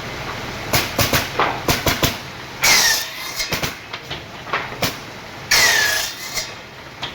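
A series of sharp knocks and taps, then two loud, harsh scraping screeches a few seconds apart, each with a whining tone that dips and rises.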